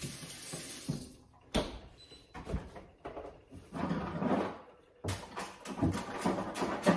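Someone rummaging in a refrigerator's freezer compartment: separate knocks and clatters as items are moved, a rustling stretch about four seconds in, and quicker clattering near the end.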